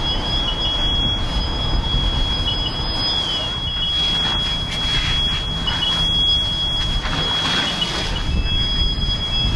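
A fire alarm sounds one continuous high-pitched tone over the low rumble of idling fire engines. Bursts of hiss come and go from about four to eight seconds in.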